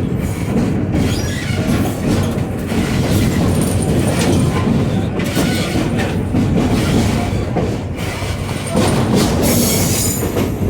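Passenger train rolling along the track: a steady rumble and rattle of wheels on rail, with brief high wheel squeals near the end.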